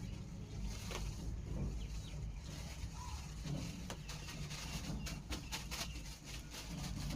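Birds calling faintly over a steady low rumble, with a quick run of sharp clicks about five seconds in.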